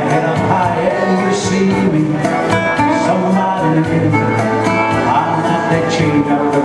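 Live band music: a man singing into a microphone while playing a nylon-string classical guitar, backed by an electronic keyboard with a steady beat.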